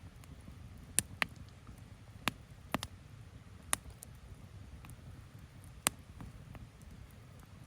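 Wood bonfire crackling: about seven sharp, irregular pops over a low steady rumble.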